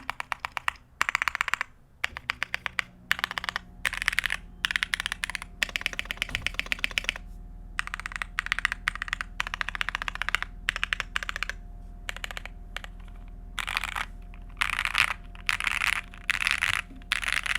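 Typing on a Thera75 mechanical keyboard built without a plate, with Gateron Black Ink linear switches, PE foam and CannonCaps keycaps: fast runs of keystrokes broken by short pauses. A faint steady hum sits underneath.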